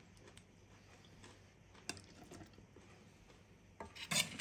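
Scattered soft clicks and clinks of a steel ladle in a steel pot as oily vegetable pickle is spooned into a glass jar, with a louder clatter near the end.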